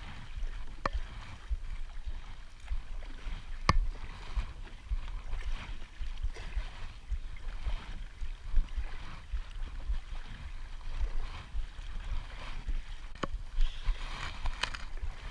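Wind buffeting the microphone in an uneven low rumble, with water lapping against a kayak's hull. A few single sharp knocks come about a second in, near four seconds, and near the end.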